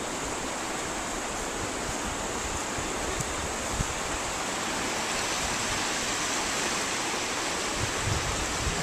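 Steady rush of flowing river water, with wind buffeting the microphone in uneven low rumbles.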